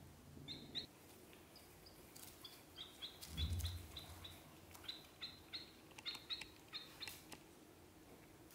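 Ducklings peeping: short high peeps, scattered and sometimes in quick runs of two or three. About three and a half seconds in there is a brief low thump, the loudest sound.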